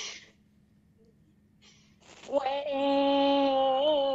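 A girl's voice singing one long held note, with a slight waver in pitch near the end: the opening of her song.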